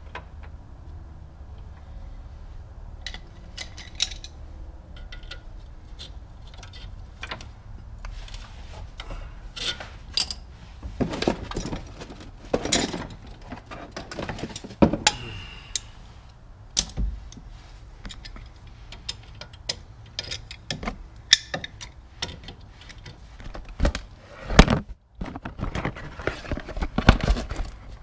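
Hand tools clinking, knocking and scraping against the rusted parking brake cable end and the rear drum brake backing plate, in irregular clicks and short scrapes that come faster and louder in the second half.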